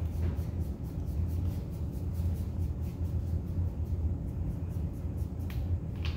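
Steady low hum, with faint rubbing of gloved fingertips blending pastel on paper and two short clicks near the end.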